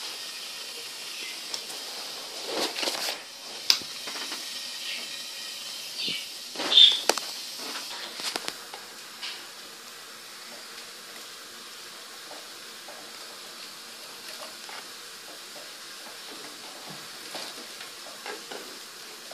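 Steady hiss with scattered rustles and clicks from the recording device being handled, the sharpest and loudest a short click about seven seconds in.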